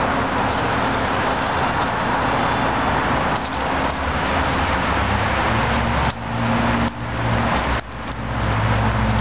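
Steady roar of road traffic: a dense, even rush with a low hum underneath. It dips briefly three times in the last third.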